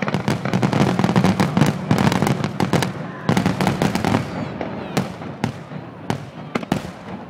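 Display fireworks going off: a dense, rapid crackle of many small reports for the first few seconds, thinning out to a handful of separate bangs about half a second apart near the end.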